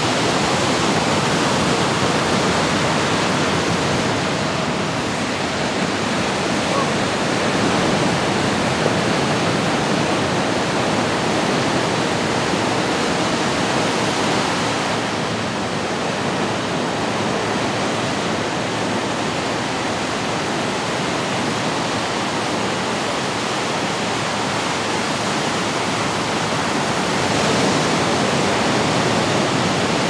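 Ocean surf breaking and washing in, a steady rushing sound that eases a little around the middle and swells again near the end.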